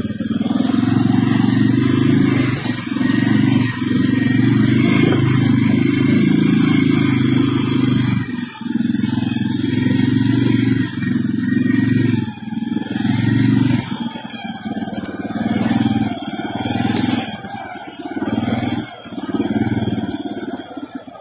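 CFMoto CForce 600 ATV's single-cylinder engine running under throttle while riding. It holds steady for the first half with a few brief lifts off the throttle, then the throttle is worked on and off in short bursts over the last several seconds.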